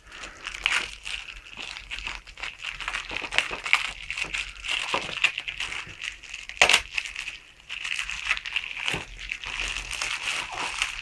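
DVD packaging being handled and unwrapped: continuous crinkling and crackling of plastic and card as the slipcover comes off the case, with one sharper snap about two-thirds of the way through.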